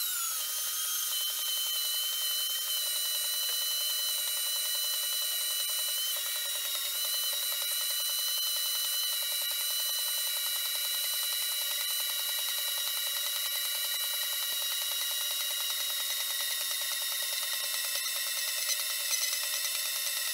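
Portable metal-cutting bandsaw running steadily as its blade cuts through round steel bar. The sound is played back sped up, so it comes across as a steady high whine.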